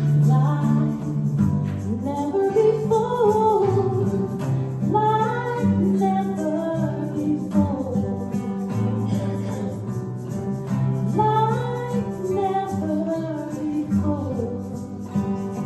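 A song performed live: a voice singing a gliding melody over guitar and low bass notes that change every second or two.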